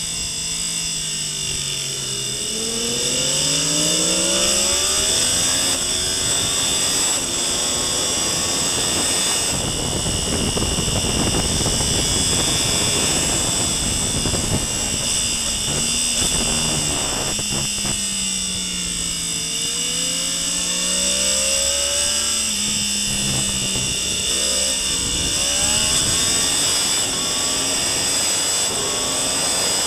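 Onboard sound of a sport motorcycle at race speed. The engine revs up with rising pitch as it accelerates, then heavy wind rush takes over at high speed. About two-thirds of the way in the engine note falls as it slows for a corner, then rises again on acceleration.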